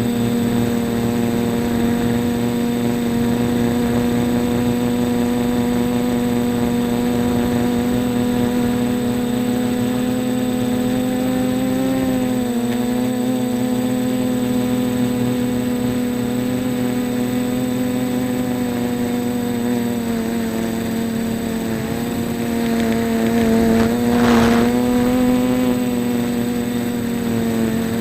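A 3D-printed quadcopter's electric motors and propellers whining steadily in flight. The pitch wavers briefly about midway, and there is a louder, noisier surge near the end.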